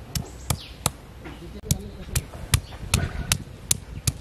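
Stone pestle knocking against a flat stone grinding slab, crushing garlic cloves and ginger. It strikes about ten times at roughly two to three blows a second, with a short pause about a second in.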